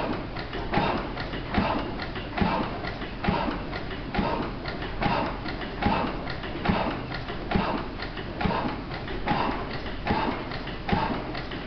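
National stationary gas engine running steadily. A heavy beat comes a little faster than once a second, about 70 a minute, with lighter ticks between the beats.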